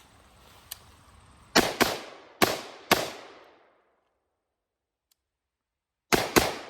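AR-15-style rifle firing six shots: four in quick succession, then, after a sudden dead-silent break, two more close together near the end. Each shot trails off in a short echo.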